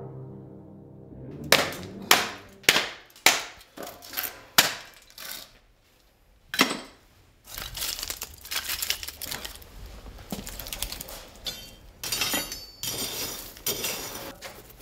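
Orchestral music fades out. Then comes a run of about seven sharp cracks, roughly half a second apart, as thin wooden kindling is broken up, and one more crack a little later. After that the wooden sticks clatter and rustle as they are gathered up by hand.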